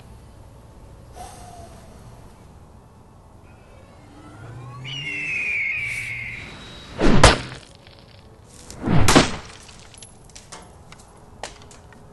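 Two heavy axe strikes about two seconds apart, chopping into a Sprint Huawei cell phone, then a few faint clicks. Before the first strike there is a brief swell of sound with a falling whine.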